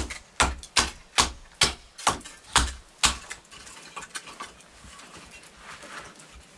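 A bushcraft knife knocking sharply into dry wood, eight hard strikes at about two a second, then only a few faint ticks.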